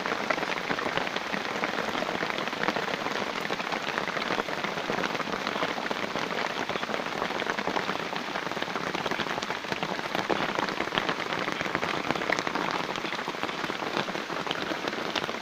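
Heavy rain falling in a rubber plantation: a steady, even hiss of rain with a dense patter of individual drops.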